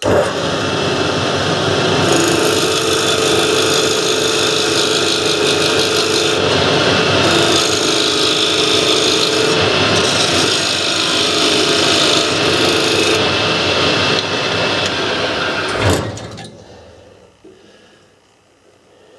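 Homemade wood lathe running while a turning tool cuts the spinning wooden blank: a steady rush of cutting over the motor's hum, with a few short breaks as the tool eases off. The cutting stops about sixteen seconds in with a knock.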